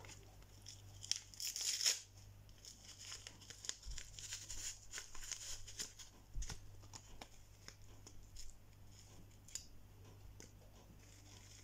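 Packaging being handled, crinkling and tearing in irregular crackles, with a louder rustle about a second or two in and two soft thumps later. A faint steady low hum lies underneath.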